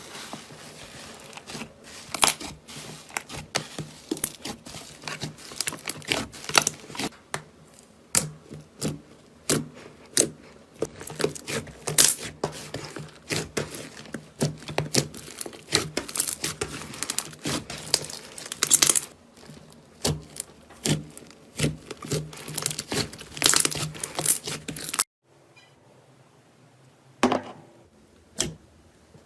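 Slime being squeezed and stretched by hand, with many sharp, irregular crackles and pops as air pockets burst. Near the end it drops off abruptly to a quieter stretch with only a few single pops.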